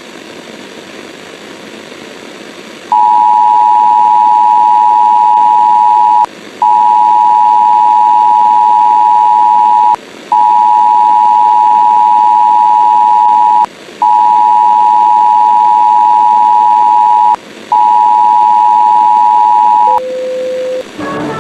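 Emergency broadcast attention signal: a steady two-note electronic tone sounded five times, each about three and a half seconds long with short breaks between, then one brief lower beep. A faint hiss comes before it for the first three seconds.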